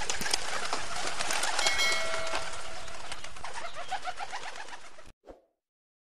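A flock of racing pigeons cooing in a loft, many overlapping coos over a rustling background, fading out near the end.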